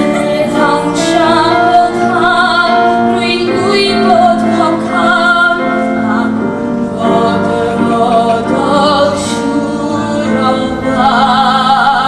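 Young cast singing a stage-musical number over backing music, the held notes wavering with vibrato.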